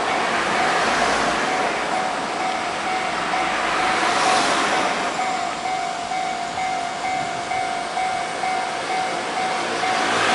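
Japanese level-crossing alarm, made by Toho Electric, ringing with a rapid, steadily repeating electronic bell tone while a train runs through the crossing. The train noise swells about four seconds in, and a second, higher-pitched bell joins about five seconds in.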